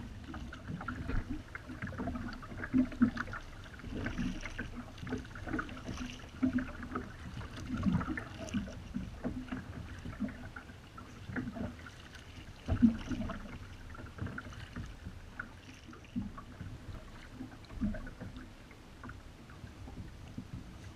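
Double-bladed Nokomis kayak paddle dipping into the water, with splashes and drips off the blades in an uneven rhythm every second or two.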